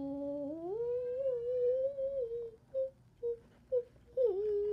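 A child humming a tune. One long held note steps up to a higher pitch about half a second in and holds, then a run of short hummed notes follows, with a longer one near the end.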